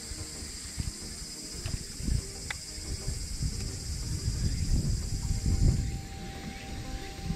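Cicadas buzzing steadily in a high-pitched chorus that cuts off suddenly about six seconds in, under an irregular low rumbling on the microphone.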